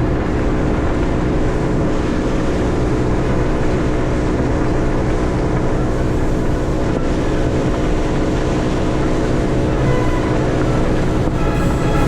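A boat's outboard motor running steadily under way, with wind and water noise. Music comes in near the end.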